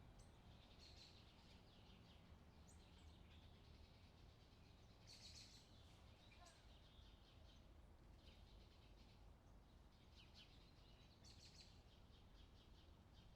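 Faint bird chirps and short twitters, scattered irregularly, over a steady low background hum.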